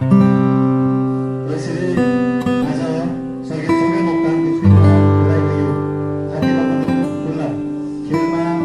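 Background music: an acoustic guitar playing slow chords, each one struck and left to ring before the next change every second or two.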